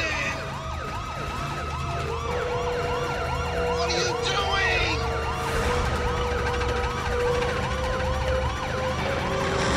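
Several police car sirens wailing up and down together, about two cycles a second, over the low rumble of car engines on the road. About four seconds in a short tyre screech cuts through as a car skids.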